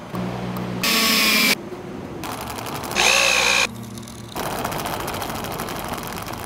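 Quick cuts of workshop power-tool sounds: two loud bursts of a power tool under a second long, about a second in and about three seconds in, the second with a wavering whine. Between and after them come a low hum and a steady buzzing rattle.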